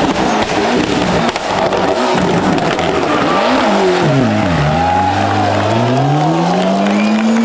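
Ford Escort RS Cosworth rally car's turbocharged four-cylinder engine taking a hairpin. The revs fall to their lowest about four and a half seconds in as it slows for the bend, then rise steadily as it accelerates away.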